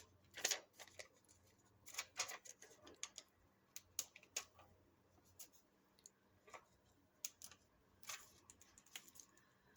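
Scattered light clicks and brief rustles of small paper and metal craft pieces being handled on a desk, a few seconds apart.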